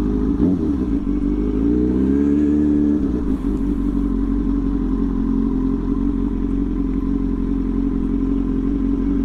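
Kawasaki Ninja sport bike's engine under way, its pitch rising for about a second and a half as it accelerates, dropping suddenly about three seconds in, then running steadily.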